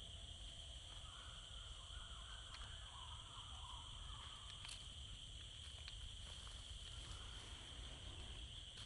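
Faint, steady high-pitched drone of insects, with a low rumble underneath and a few faint ticks.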